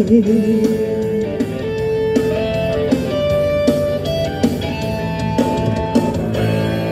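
Instrumental backing track playing the closing bars of a song through a small portable speaker. A woman's held sung note with vibrato ends about a second in.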